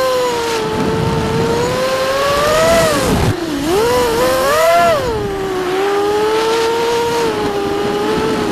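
Vortex FPV racing quadcopter's electric motors and propellers whining, heard from onboard, the pitch rising and falling with the throttle. About three seconds in the pitch drops sharply, then climbs back a second or so later.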